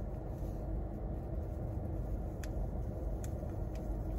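Steady low rumble inside a parked car, with a couple of faint clicks from the drink-mix packet and plastic water bottle being handled.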